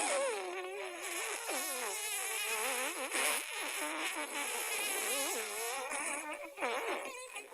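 A string of cartoon-style fart sound effects, pitched and wobbling up and down in pitch, running almost without a break.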